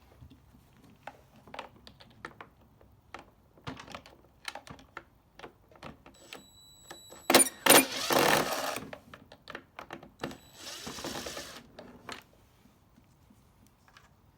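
Hand work on a backpack blower during servicing: a run of small clicks and knocks of parts and tools being handled. About seven seconds in come two loud snaps and a second of rustling noise, with another shorter stretch of rustling a few seconds later.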